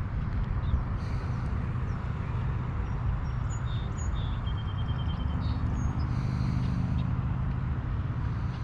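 Steady low outdoor rumble with faint bird chirps, including a short rapid trill around the middle.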